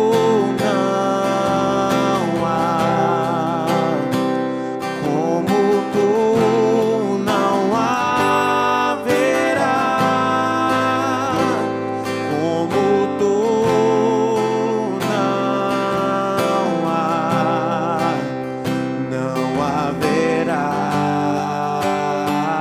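Worship song: a voice singing long, wavering notes over strummed acoustic guitar.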